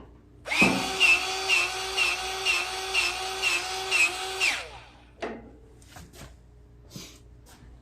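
Electric grease gun running for about four seconds, its motor whine pulsing about twice a second with the pump strokes, greasing the riding mower's front-end grease zerks. A few light knocks and clicks follow.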